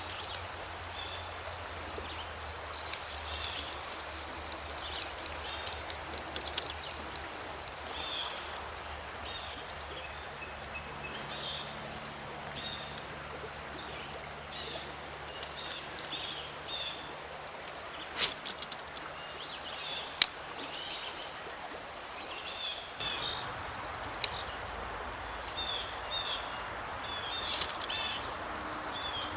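Shallow creek water running in a steady rush, with small birds chirping again and again, and two sharp clicks a couple of seconds apart about two-thirds of the way in.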